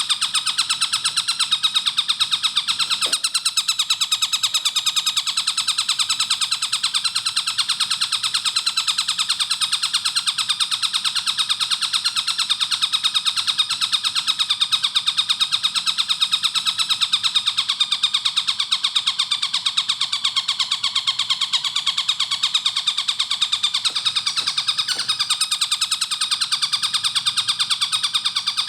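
Tengkek buto kingfisher calling nonstop in a rapid, tightly spaced string of sharp repeated notes, the fast-firing song used as a training recording for caged songbirds.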